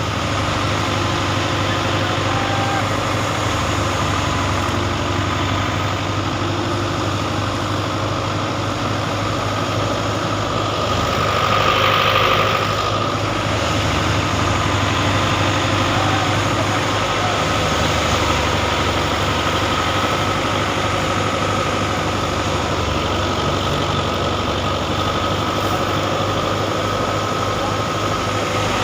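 An engine running steadily at a constant speed, with a brief louder rushing noise about twelve seconds in.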